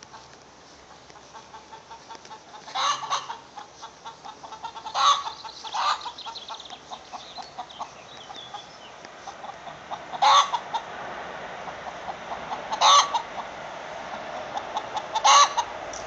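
Hens giving six loud, short calls, spaced a couple of seconds apart.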